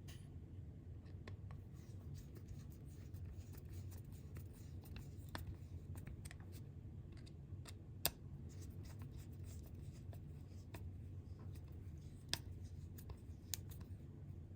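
Small screws being turned by hand with a screwdriver into the shaver's plastic housing: faint scattered clicks and light scraping, with a sharper click about eight seconds in and another about twelve seconds in, over a low steady hum.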